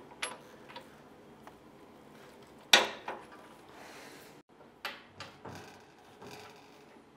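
Scattered clunks and knocks of the heavy cast bandsaw table being handled on its tilting trunnion, with one sharp, ringing metal knock about three seconds in and a smaller one about two seconds later.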